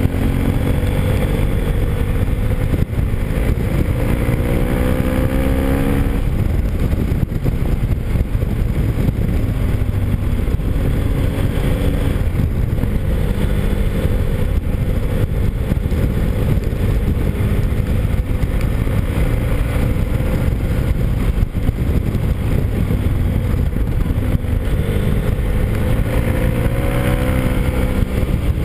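Motorcycle engine running under way, with heavy wind noise on the microphone. The engine note climbs as it accelerates in the first few seconds and again near the end, and holds steadier in between.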